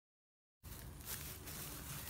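Complete silence for about half a second, then faint, even outdoor background noise with a low rumble.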